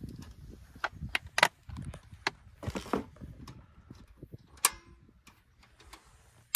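Irregular clicks and knocks of camp cooking gear being handled, a plastic oil bottle and cooler among it, with a loud sharp knock about a second and a half in and another, briefly ringing, past the middle.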